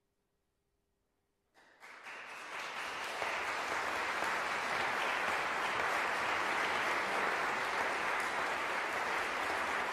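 Near silence, then audience applause breaking out about a second and a half in and quickly building to steady clapping.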